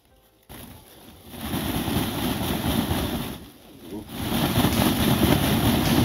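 Wind buffeting the microphone: a rushing noise that starts suddenly about half a second in and comes in two long gusts, with a short lull a little past halfway.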